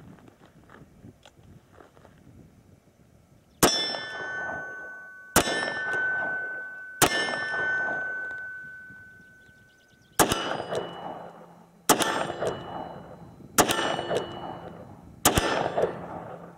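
Seven .357 Magnum shots from a Smith & Wesson 686 Plus revolver, starting about three and a half seconds in and spaced roughly a second and a half to two seconds apart, with a longer pause after the third. Each shot is followed by the ring of a struck steel target plate.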